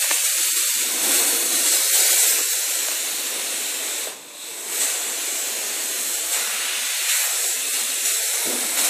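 Compressed air hissing steadily from a handheld air blow gun on a hose, cutting off briefly about four seconds in before starting again.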